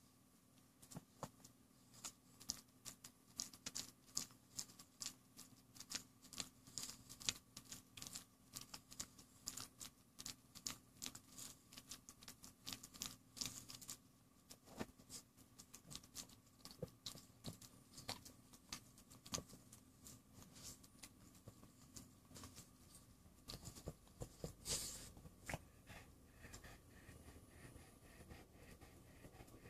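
Boston terrier chewing and gnawing on a plush stuffed toy: faint, quick, irregular clicks of jaws and teeth on the fabric, several a second, that thin out and stop near the end.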